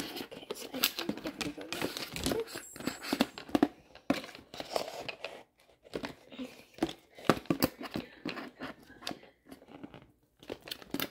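Crinkling and rustling with irregular light clicks and knocks as small supplies are handled and sorted, pausing briefly about halfway and again near the end.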